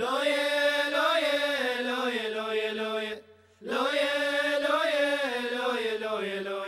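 Opening theme music: a voice chanting long, held melodic phrases, two of them, with a short break just over three seconds in.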